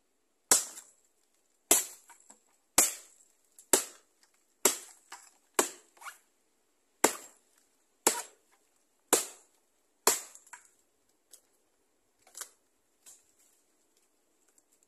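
A series of chopping strokes into a hollow, rotten tree trunk, about one sharp crack a second with eleven strong blows. A few fainter strikes follow near the end.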